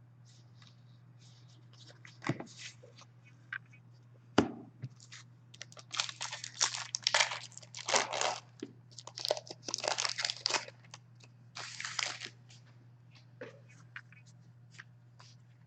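Crinkly rustling and tearing of trading card pack wrappers, with cards being handled and shuffled, in quick scratchy bursts that are busiest mid-way. A single knock comes about four seconds in.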